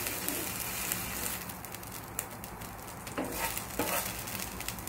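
Wooden spatula scraping and knocking against a nonstick frying pan a few times in the second half, gathering up the last fried fenugreek leaves, over a faint sizzle of hot oil.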